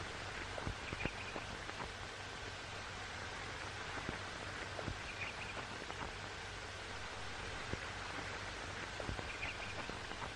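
Steady hiss of an old film soundtrack, with scattered clicks and pops and a faint short high chirp about every four seconds.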